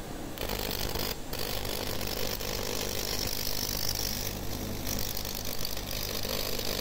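Plasma jet module running with a steady sputtering hiss and hum, fed by its small internal air pump, which is what makes the plasma sputter. There is one very brief break about a second in.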